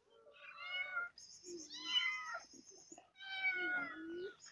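Hungry cats and kittens meowing for food: about three long, falling meows in a row, with a thinner, higher cry over the middle one.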